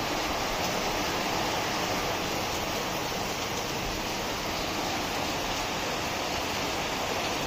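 Rain falling steadily, an even hiss that does not change.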